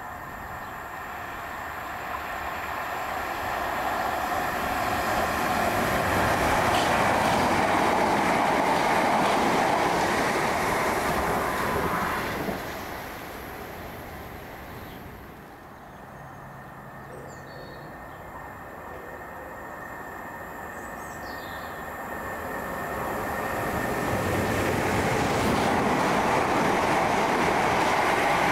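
Electric multiple-unit train running on the rails, its noise swelling and then dropping away abruptly about halfway through. After a quieter stretch with a few faint bird chirps, a Southern Class 377 electric multiple unit runs along the platform, its noise building toward the end.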